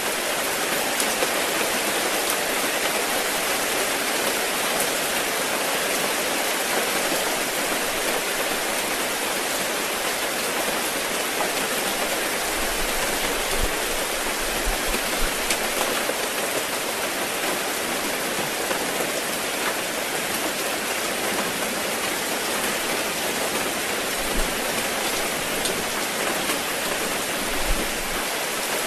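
Steady rain falling on and dripping through the leaves of a tree, a dense even patter with scattered heavier drops.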